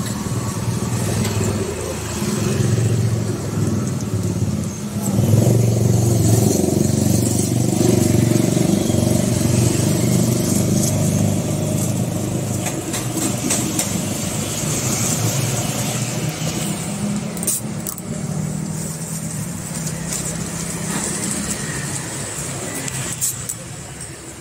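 Motor vehicle traffic running close by: a low engine sound that swells about five seconds in and eases off gradually.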